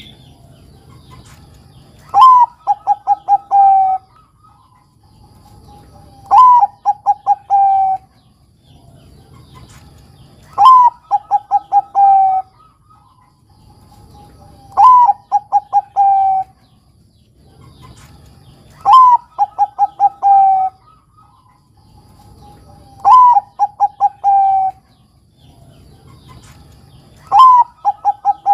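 Bangkok-type zebra dove (perkutut) cooing in its song, seven phrases about every four seconds. Each phrase is a rising-then-falling first note followed by a quick run of short notes that step slightly down in pitch and end on a longer low note.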